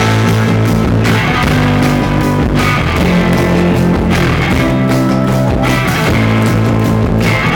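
Live rock band playing loudly: electric guitar, bass guitar and drums, heard from within the audience.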